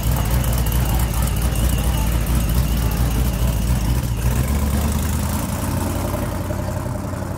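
Classic GMC pickup truck's engine running with a deep, steady rumble as the truck pulls away; its pitch shifts about four and a half seconds in, and the sound fades near the end.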